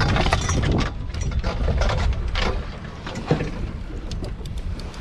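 Wind rumbling on the microphone aboard a small boat, with scattered clicks and knocks of fishing gear and the boat's fittings.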